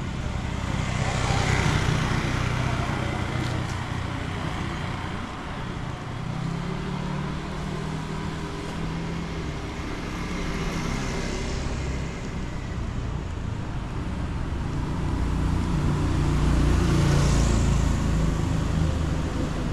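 Street traffic: motor vehicles passing one after another, engine noise swelling and fading several times, loudest near the end.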